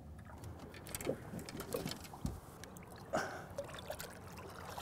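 Faint water trickling and lapping around a small boat, with small knocks and one brief louder noise about three seconds in.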